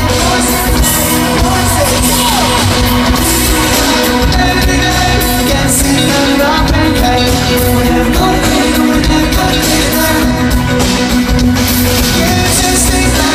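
Live pop-rock band playing a song with sung lead vocals and a steady beat, loud, heard from within the audience in front of the stage.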